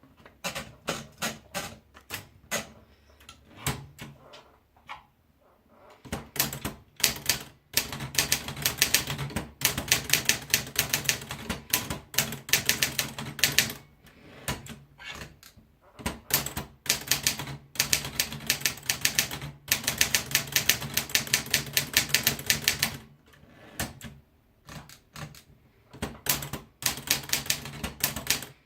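Olivetti Studio 44 manual typewriter being typed on. A few scattered keystrokes come first, then about six seconds in, fast steady typing in runs of several seconds with short pauses between.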